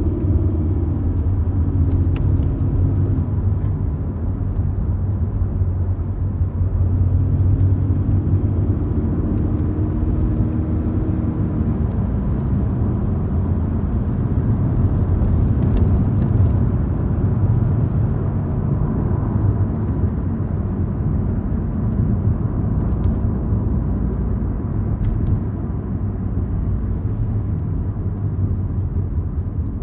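Sedan driving on a street: a steady low rumble of engine and road noise, with the engine note shifting in pitch twice in the first dozen seconds.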